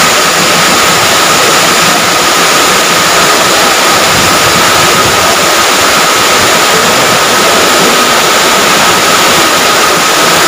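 Muddy floodwater rushing in a fast torrent down steps and along a paved floor: a loud, steady rushing noise that never lets up, with a thin steady whine over it.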